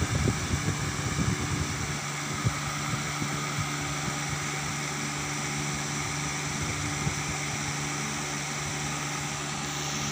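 Steady low hum over an even hiss, with a few low bumps and crackles in the first two seconds.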